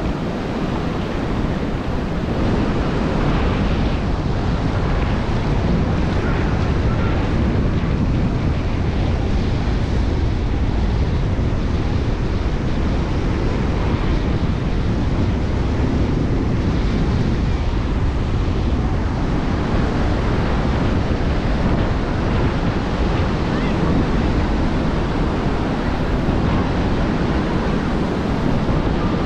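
Ocean surf washing onto a sandy beach, with wind rumbling on the microphone and beachgoers' voices in the background. The sound is steady throughout.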